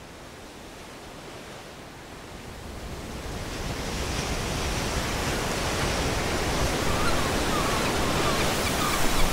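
Sea waves and surf, a steady rushing wash that fades in over the first few seconds. Short high chirps come in over it near the end.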